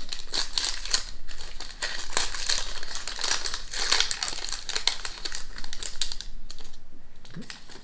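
Paper sleeves of After Eight mints crinkling as they are handled and the thin mints are slid out: a steady run of dry crackles that thins out near the end.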